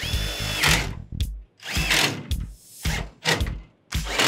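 Cordless Makita impact driver driving screws into sheet-metal ductwork in several short runs, with a steady whine at the start and then separate bursts.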